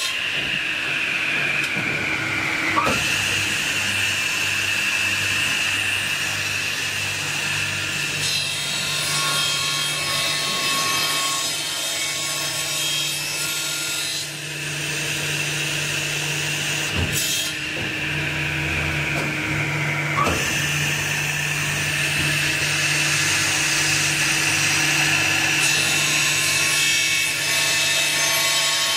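CNC circular cold saw cutting solid aluminium bars, over a steady machine hum. Twice the blade's high whine falls in pitch as it works through the cut, ending in a sharp knock: about 3 seconds in and again about 20 seconds in.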